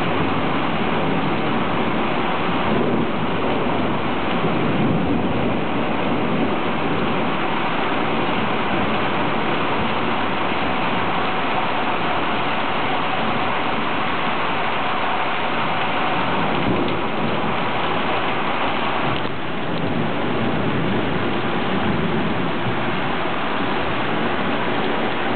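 Heavy rain falling steadily in a thunderstorm, with low rumbles of thunder.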